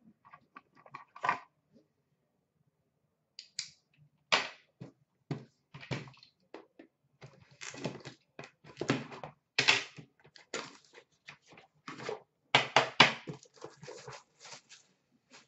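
Knife slitting open the cardboard outer box of an Upper Deck The Cup hockey card set, then cardboard scraping and tearing and the metal tin inside being pulled out and knocked down on the counter. The result is an irregular run of scrapes, clicks and knocks, starting a few seconds in and busiest in the second half.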